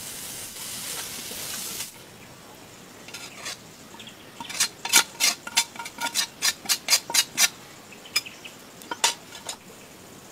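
Food sizzling in a pan, the hiss stopping abruptly about two seconds in. Then a metal utensil knocks against the pan in a quick run of about a dozen ringing clicks, roughly four a second, and twice more near the end.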